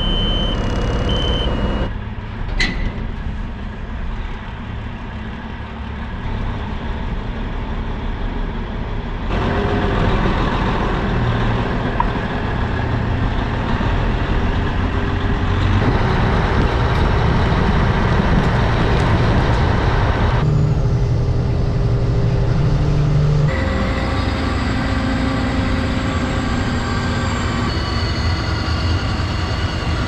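Peterbilt semi truck's diesel engine running, in several cut-together clips of idling and driving. A dash warning buzzer beeps in short pulses for the first second or so, and a sharp click comes about two and a half seconds in.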